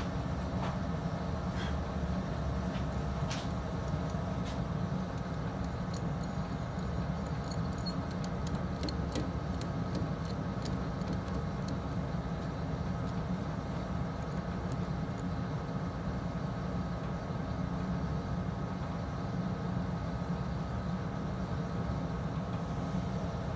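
Steady hum of a window air conditioner running, which the gunsmith calls kind of loud. Light metallic clicks and ticks come in a cluster midway through as a micrometer is handled against a lathe workpiece.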